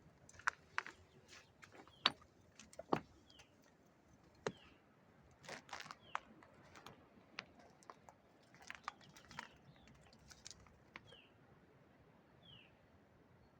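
Footsteps on rocky ground: irregular crunches and scrapes of stones underfoot. A bird repeats a short falling call every second or two.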